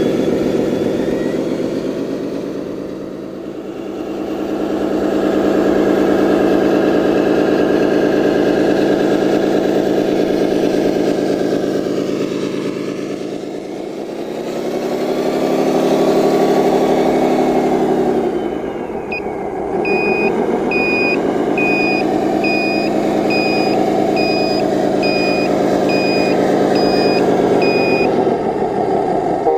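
Electronic sound module of a scale RC construction vehicle playing a diesel engine that revs up and down several times. From about two-thirds of the way in, a reversing beeper sounds about once a second.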